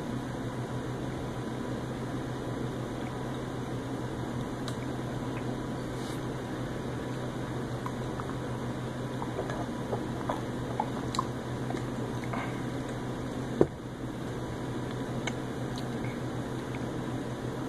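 Steady room hum and hiss, with faint eating and drinking sounds: a run of small mouth clicks and gulps in the middle, and one sharp knock about three-quarters of the way through.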